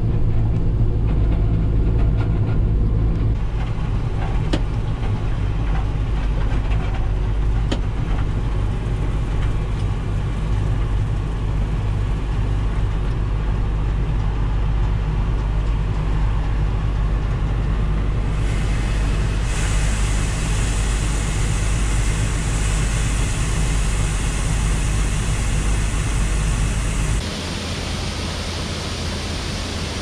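Tractor and combine engines running steadily, heard from inside the tractor cab. About two-thirds through, a steady hiss joins in as soybeans pour from the combine's unloading auger into the grain cart. Near the end the engine hum drops away, leaving the lower hiss of pouring grain.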